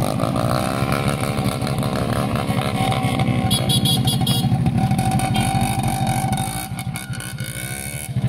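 Motorcycle engines running as the bikes pull away on a gravel road, the pitch rising and falling with the throttle. The sound drops in level about six and a half seconds in.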